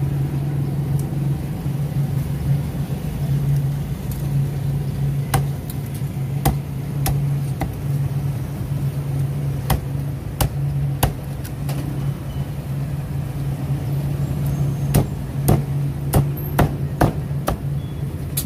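Cleaver chopping roasted duck on a thick round wooden chopping block: a series of sharp, irregularly spaced chops starting about five seconds in and coming closer together near the end, over a steady low hum.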